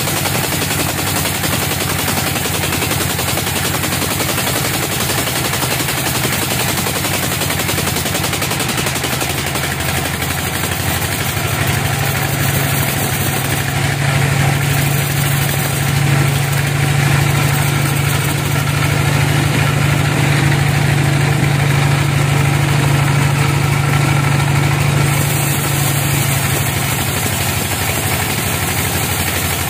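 Band sawmill blade cutting lengthwise through a large teak log: a loud, steady machine noise with a rapid rattle. A deep hum swells about a third of the way in and eases again near the end.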